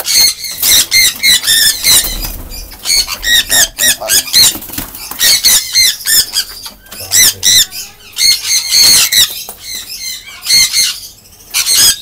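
Sun conures screeching, a rapid string of loud, shrill calls with brief lulls partway through and a last call near the end.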